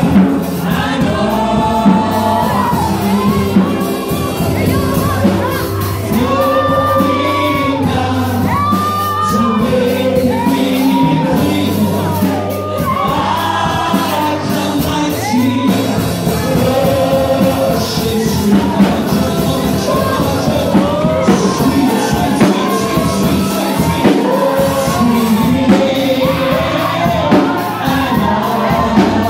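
Live worship music: a woman sings into a microphone over a keyboard and drum kit, amplified through the hall's PA.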